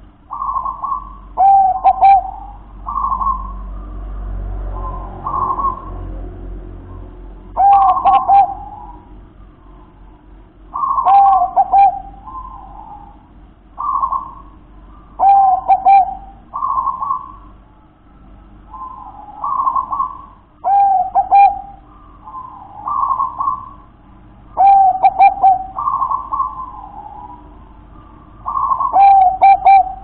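Zebra dove (perkutut) singing its cooing song: short phrases of a few quick, rolling coos, repeated every two to three seconds.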